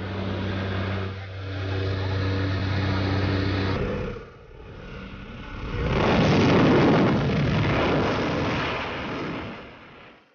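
Propeller aircraft engine droning steadily inside the cabin of a skydiving plane. About six seconds in it gives way to a louder, even rushing noise.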